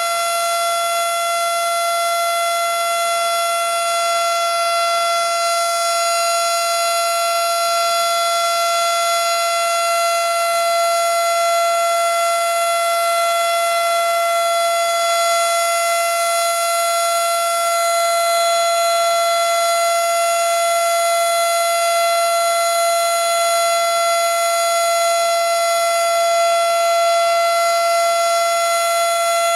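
Federal Signal Model 7 outdoor warning siren at full speed, holding one steady, unchanging tone during a scheduled test. It is loud, heard from right beneath the siren.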